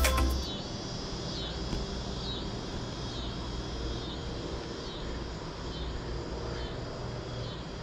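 Quiet outdoor evening ambience with a steady high-pitched chorus that swells and dips about once a second over a faint low rumble. Background music cuts off at the very start.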